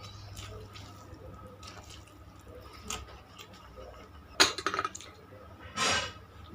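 Eating utensils clinking and scraping against a plate of fried rice and noodles, with a loud rattle of clicks about four and a half seconds in and a shorter scrape near the end.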